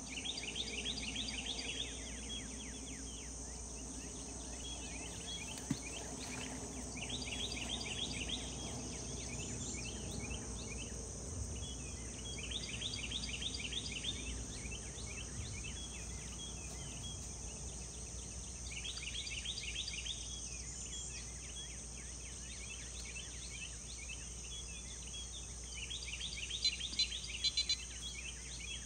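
Dawn chorus of insects by the river: a steady high buzz, with a rapid trill that comes in bursts of about two seconds every five or six seconds. A low steady rumble sits underneath, and a few sharp clicks come near the end.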